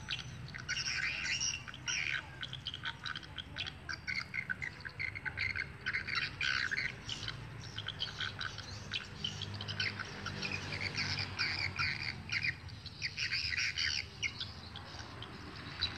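Edible-nest swiftlets twittering: a dense, continuous run of quick high chirps and trills, from the swiftlets circling a swiftlet house and the lure call it plays through its rooftop speaker.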